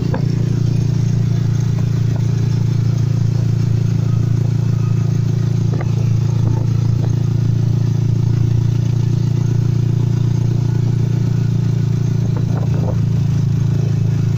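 Steady low engine drone of a moving passenger vehicle, heard from on board while riding, with a few brief rattles.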